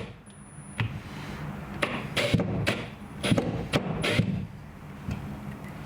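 A string of irregular knocks and clunks, about eight in the space of a few seconds, as tools and materials are handled at a drywall repair, over a faint steady low hum.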